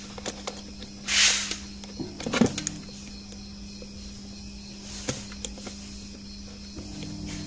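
Handling noise from multimeter test probes being worked against a blender's thermal relay terminals: a short loud rustle about a second in, then a few small clicks, over a steady low hum.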